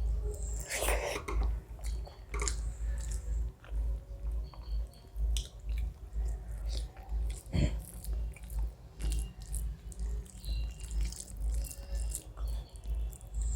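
A person chewing food close to the microphone, in a steady rhythm of soft low thumps with scattered small wet clicks and lip smacks.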